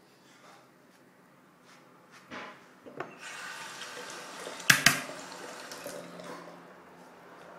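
Water running from a tap into a sink for about three seconds, with two sharp knocks near the middle, the loudest sounds.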